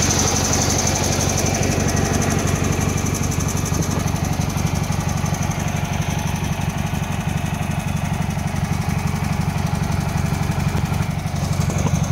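A Cub Cadet 782 garden tractor's 18 hp Kohler Magnum twin-cylinder engine idling steadily, with an even, unchanging beat.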